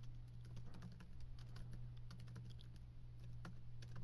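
Computer keyboard typing: a run of quick, irregular keystrokes, faint, over a steady low electrical hum.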